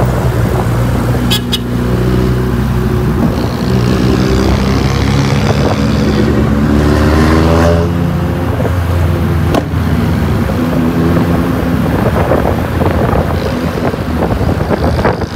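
Honda Civic's engine pulling hard under acceleration, its pitch climbing steeply about halfway through and then dropping, with a couple of sharp pops along the way.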